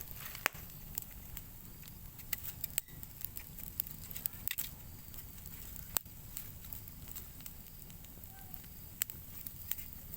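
Open fire crackling, with irregular sharp pops and snaps scattered through, as an Oroxylum pod is roasted over it.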